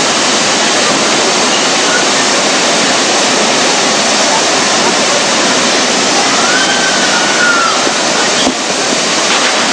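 Artificial rockwork waterfalls pouring into a pool: a steady, loud rush of falling water.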